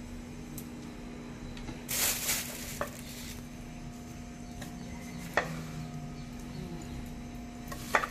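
Seafood papaya salad being tossed with a spoon in a mortar: a brief rustle about two seconds in, then a few sharp clicks of the spoon against the mortar, the last near the end, over a faint steady hum.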